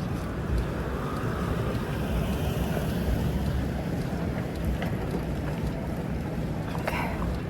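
Wind buffeting the microphone over a steady low rumble, with a brief faint squeak near the end.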